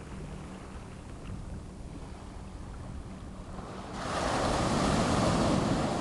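Ocean surf at the shoreline: a low, steady wash of small waves, then about four seconds in a wave breaks and rushes up the sand close by, a much louder hiss.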